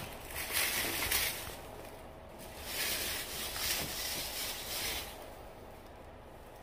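Clear plastic bag crinkling and rustling in several bursts as a flat-screen TV is pulled out of it, fading after about five seconds.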